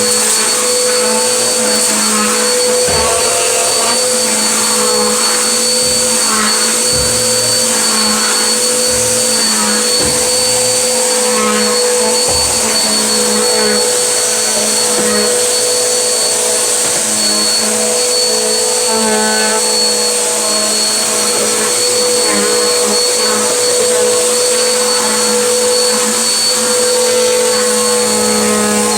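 Vacuum cleaner running steadily on a medium setting while it sucks up road salt and grit, which crackle and crunch as they rattle up the hose, with a few low knocks in the first half.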